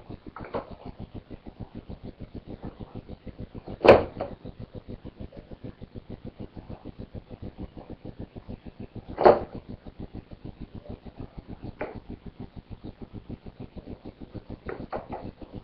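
Two loud knocks about five seconds apart, with a few fainter ones, over a fast, even pulsing.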